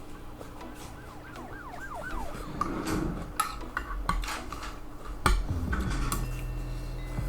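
Eating sounds from a bowl of pho: a spoon and chopsticks clinking against the bowl, in sharp separate clicks. A short, quickly warbling tone comes about a second and a half in.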